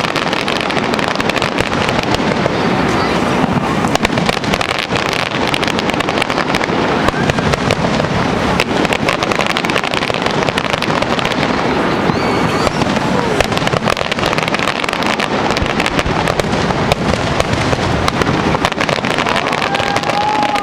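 Fireworks finale: a dense, continuous barrage of aerial shells bursting and crackling, with no let-up.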